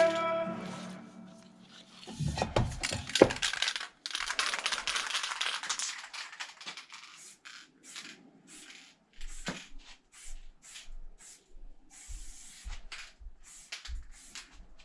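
Aerosol spray paint can: a few knocks, then one hissing spray of about three seconds, followed by a string of short spray bursts.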